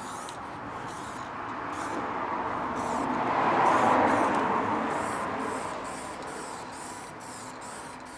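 Aerosol spray-paint can hissing steadily as paint is sprayed onto a car's wheel-arch panel. The hiss grows louder toward the middle and fades toward the end.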